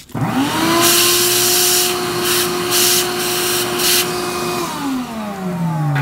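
Shop vac switched on: the motor spins up to a steady whine over a loud suction hiss that swells and drops as the nozzle works over the heater's burner and thermocouple. About four and a half seconds in it is switched off and winds down, its whine falling in pitch.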